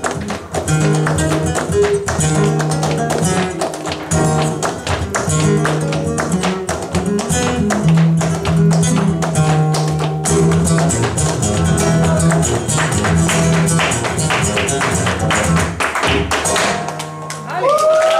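Flamenco guitar playing a bulería, fast strums and picked notes over a steady bass line, with hand-clapping palmas keeping the rhythm. The playing ends about a second before the end, and a short rising shout follows.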